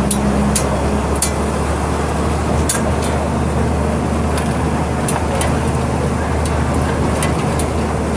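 Volkswagen 17.230 EOD city bus's turbo diesel engine running steadily under way, a constant low hum with road noise and occasional sharp clicks.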